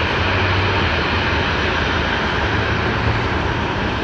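Boeing 737 airliner's twin jet engines running at taxi power as it rolls by: a steady rushing noise with a low hum underneath.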